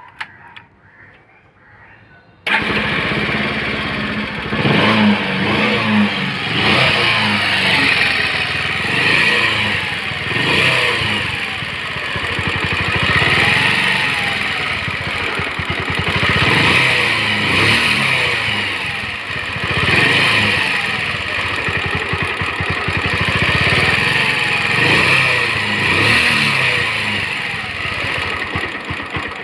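Bajaj Pulsar 150's single-cylinder four-stroke engine, which comes on abruptly about two seconds in and then runs, its pitch rising and falling again and again as it is revved and let back. This is the engine noise the bike is being repaired for, a fault the mechanic goes on to fix by fitting a new timing chain.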